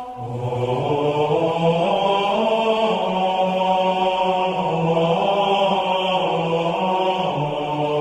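Music of slow, held, chant-like notes, changing pitch every second or two.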